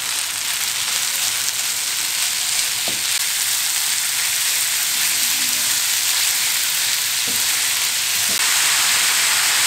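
Minced beef frying with onions and peppers in an oiled frying pan: a steady sizzle, with the mince being stirred and turned by a wooden spatula.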